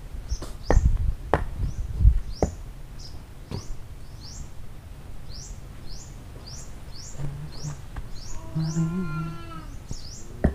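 Repeated short, rising high chirps, about two or three a second, from a bird or insect. A few sharp knocks and thumps come in the first couple of seconds, and a low drawn-out call is heard near the end.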